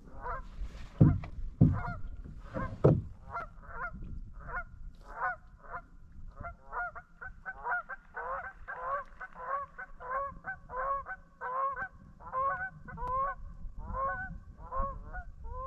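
A flock of geese honking, a few calls at first and then a steady rapid series of honks several times a second. A few low thumps sound in the first few seconds.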